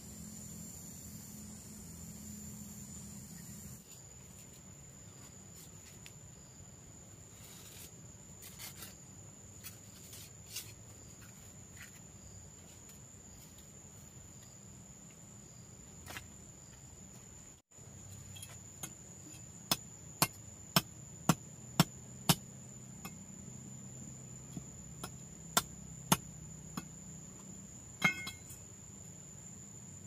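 Steel mason's trowel knocking on concrete hollow blocks to bed them in mortar. There are a few light knocks first, then a run of sharp taps about two a second in the second half, ending with one more knock near the end.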